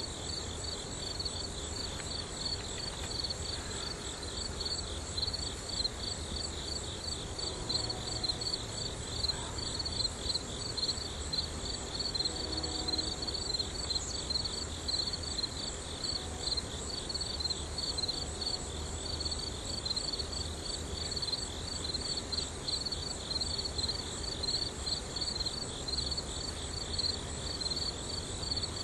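A steady chorus of insects chirping in fast, even pulses, with a thinner high trill above it, over a low rumble.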